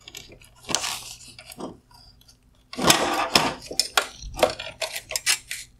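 A run of plastic clicks, knocks and scrapes as wire harness connectors are worked loose and unplugged from the bottom LED board of a GMC Sierra LED headlight. The clicks come thickest in the second half.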